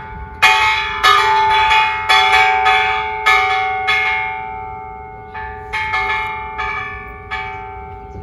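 The bell of the Children's Peace Monument, rung by pulling its cord: about a dozen strikes, each ringing on with a clear held tone. The strikes come about twice a second at first, then slow down and grow softer in the second half.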